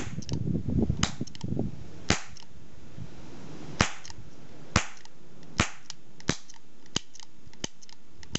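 Blue plastic toy cap gun firing a string of sharp cracks, roughly one a second, with fainter clicks between them.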